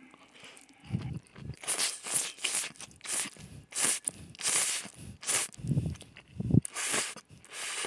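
Cold spicy bibim-myeon noodles being slurped up, a run of about eight short slurps, with a few low thumps between them.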